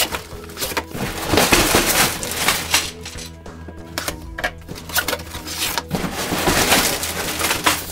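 Cardboard box being opened by hand: a blade slitting along the box's edge and the cardboard end flap scraping and tearing open, in two long scraping stretches about a second in and again near the end, over background music.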